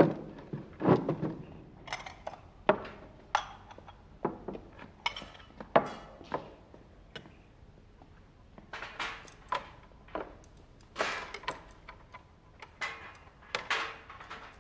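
A wooden table set down with a thump, then ceramic bowls and plates set on it one after another: a dozen or more short knocks and clinks, some with a brief ring.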